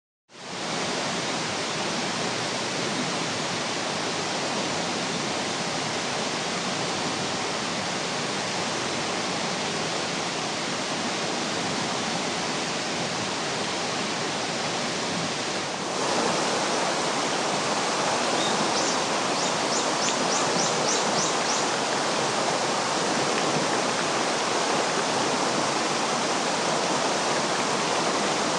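Mountain river water rushing over rapids, a steady hiss that fades in at the start and gets a little louder about sixteen seconds in. Around twenty seconds in, a short run of about eight quick high ticks sounds over it.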